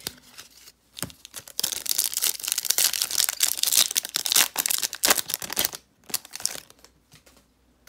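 Trading card pack wrapper being torn open and crinkled: a dense rustle for about three seconds, then scattered crinkles and clicks as the cards are handled.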